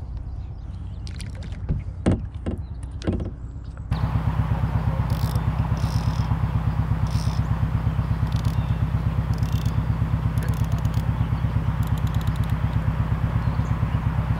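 A few short knocks and clicks, then from about four seconds in an engine running steadily with a fast, even throb.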